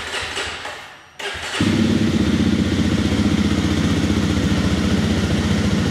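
A 2024 Jawa 350's 334 cc liquid-cooled single-cylinder engine being started: a starter cranks for about a second, there is a brief break, then the engine catches about a second and a half in and settles into a steady idle.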